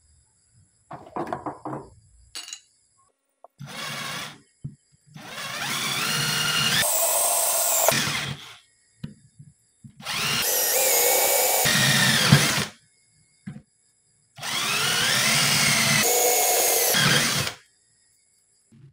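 Cordless drill running in three bursts of about three seconds each, its motor pitch rising and falling under load, after a couple of brief short runs at the start.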